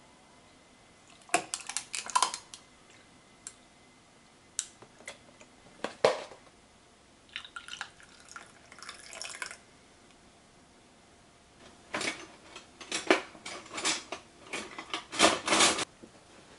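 Dishes and kitchen utensils clinking and knocking as they are handled, in irregular clusters of sharp taps with quiet gaps between.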